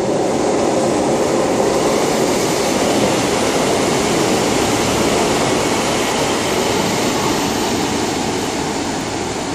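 GWR Class 150 Sprinter diesel multiple unit arriving and running past close by, with a steady noise of engines and wheels on the rails. The noise eases off over the last couple of seconds as the train slows for its stop.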